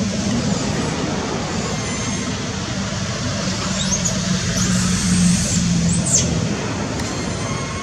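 Steady low rumble of engine noise, like passing traffic, which is the loudest sound. Over it come brief high-pitched squeals from a young long-tailed macaque, about four seconds in and again about six seconds in.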